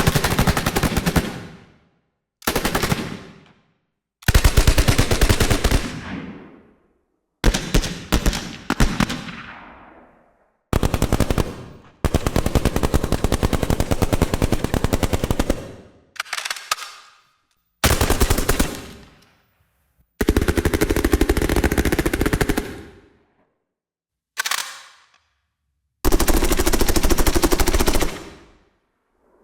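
Machine gun fire in about ten separate bursts of rapid automatic shots, some under a second and others three to four seconds long, each trailing off, with short silences between them.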